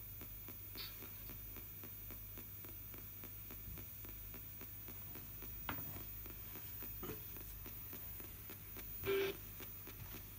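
Spirit box (ITC Research Device radio) sweeping the AM band downward: a steady hum and hiss with faint rapid ticking as it steps from station to station, broken by a few brief blips of broadcast sound, the loudest near the end.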